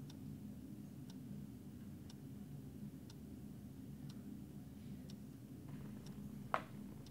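Clock ticking about once a second over a steady low room hum, with one louder sharp click near the end.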